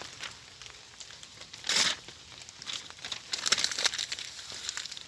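Kindling for a campfire (a small plastic bag, twigs and leaves) being crumpled and handled, with a loud rustling burst about two seconds in and a run of crackly rustles a little later.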